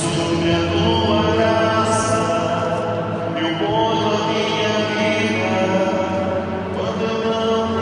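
A man singing into a handheld microphone, with long held notes.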